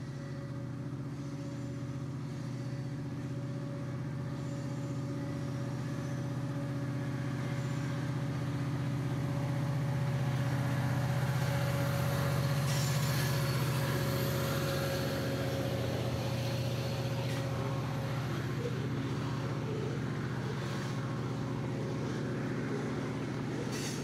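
A railway locomotive's engine running steadily with a low hum. It grows louder as the bike draws level with it about halfway through, then fades a little.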